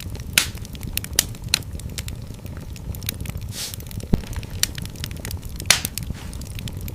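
Fire burning in a fireplace, crackling steadily over a low rumble of flames, with a few sharp louder pops: one about half a second in, two more between one and one and a half seconds, and one near six seconds.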